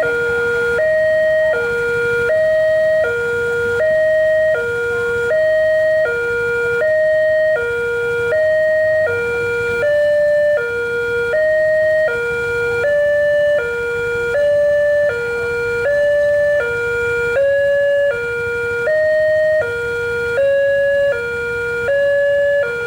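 Railway level-crossing warning siren sounding a steady two-tone hi-lo alternation, each note about a second long. In the second half the higher note sits lower and bends unevenly in pitch, an irregular siren that the title calls an 'error'.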